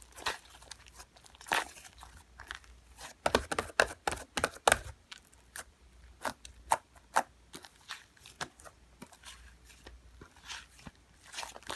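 Fluffy clay slime being squished and pulled apart by hand, giving irregular crackles and pops, with a quick flurry of louder pops about three to five seconds in.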